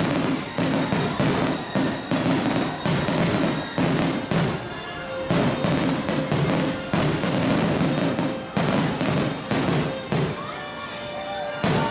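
Aerial fireworks shells bursting in rapid succession, many sharp bangs a few a second, with one last bang near the end.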